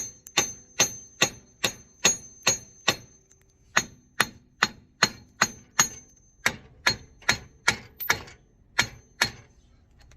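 Hammer striking a car's front wheel hub bearing assembly to knock it loose from the steering knuckle: steady blows about two a second, each with a ringing metallic note, with two short pauses, stopping about nine seconds in.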